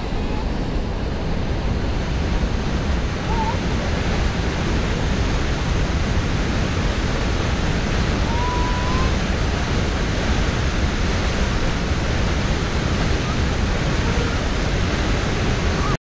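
Huka Falls, where the Waikato River shoots out of a narrow volcanic rock ravine into the pool below: the steady, dense roar of a large volume of fast white water.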